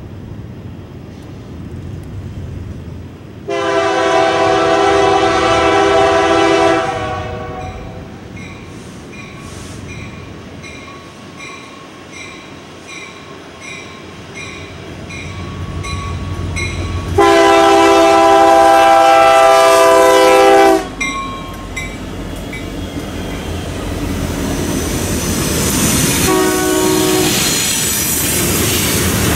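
Union Pacific freight locomotive sounding its air horn on approach: two long blasts about fourteen seconds apart, then a shorter, fainter one near the end. Under the horn, the train's rumble and wheel clatter build as the locomotive and its covered hopper cars draw up and pass.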